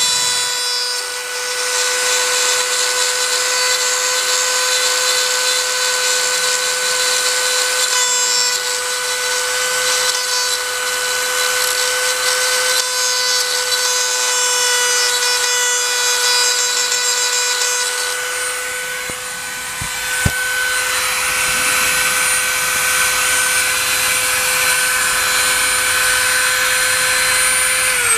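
Dremel rotary tool with a small diamond bit running at a steady high speed, grinding into a broken titanium-nitride drill bit stuck in a broken bolt in a transfer case output shaft: a steady high whine over a grinding hiss. A single sharp tap about two-thirds of the way through, and right at the end the whine begins to fall as the tool is switched off and spins down.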